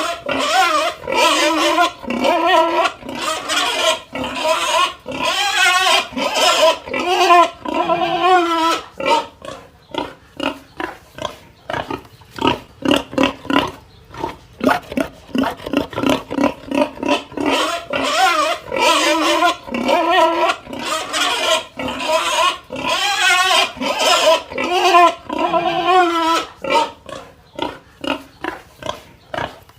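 A pig squealing over and over in long, wavering cries, broken up by runs of short, rapid grunts. The squeals come in two long spells, each followed by a quicker string of short calls.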